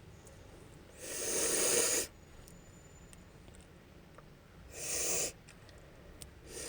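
A woman breathing noisily through a runny nose, twice: a longer breath about a second in and a shorter one around five seconds in, between sneezes. She needs to blow her nose.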